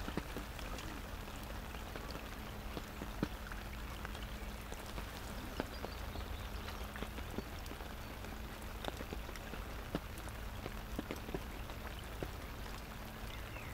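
Steady rain falling on a fishing umbrella canopy and the lake surface, with many scattered, sharper drips tapping at irregular moments.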